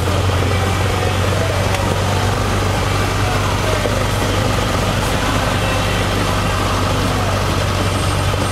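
Cessna 152's four-cylinder Lycoming engine running steadily at low taxi power, heard from inside the cockpit as a deep, even drone.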